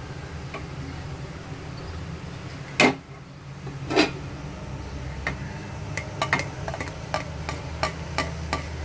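Spatula knocking and tapping against a pan of fried rice: two sharp knocks a few seconds in, then from about halfway a run of quick, irregular clicks as the rice is stirred, over a steady low hum.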